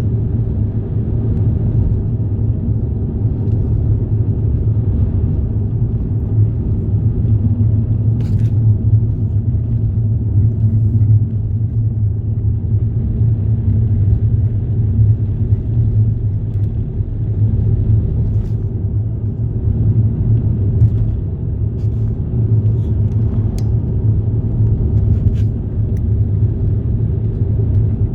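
Steady low rumble and engine drone of a moving vehicle, with a few faint clicks.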